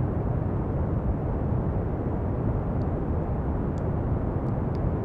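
Steady pink noise: an even, deep rushing hiss that does not change.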